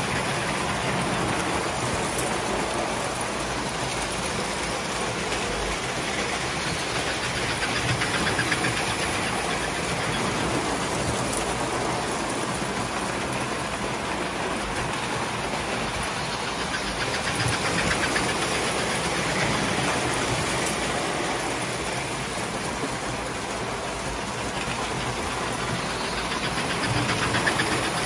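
Several tinplate model trains running on metal three-rail track: a steady clattering rumble that swells a few times as trains pass close.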